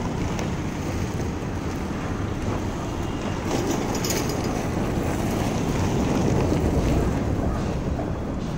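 Mini Cooper S Convertible's turbocharged four-cylinder engine running at low revs as the car reverses slowly down a car carrier's steel loading ramps, heard as a steady low rumble with a few faint clicks.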